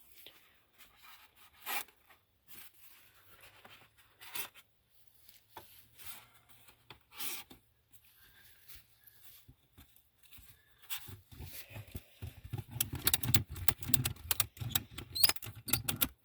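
Ratchet strap being worked around foam insulation board on a beehive: scattered scrapes and rubs of the webbing and foam, then from about eleven seconds in a fast run of sharp clicks as the ratchet is cranked tight.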